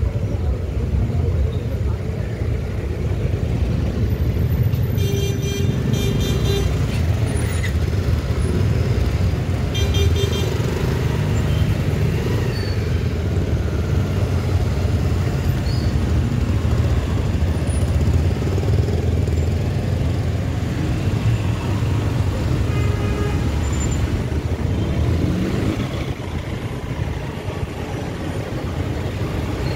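Steady low rumble of a motor vehicle on the road, with a horn honking about five seconds in, again about ten seconds in, and once more near twenty-three seconds.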